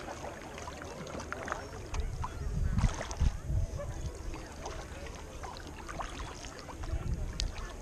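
Kayak paddle strokes on calm sea water: the blades dip in and water drips and trickles off them in many small splashes, with a few heavier low bumps about two to three and a half seconds in.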